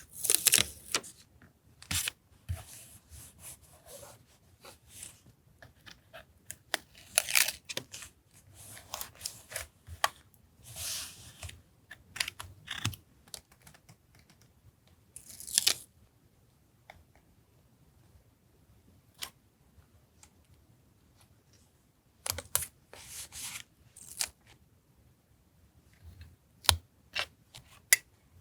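Paper and stickers being handled for journal collage: short bursts of rustling and crinkling with scattered small taps and clicks, and a quieter stretch in the middle with only a few clicks.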